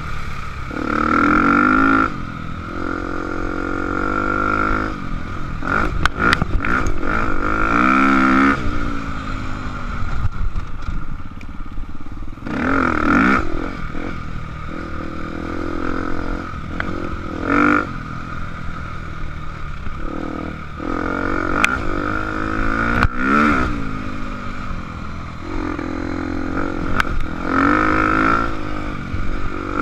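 KTM 250 XCF-W four-stroke single-cylinder dirt bike engine being ridden hard, revving up and easing off again and again as the rider works the throttle and gears. Sharp knocks and clatter from the bike over rough ground come through now and then.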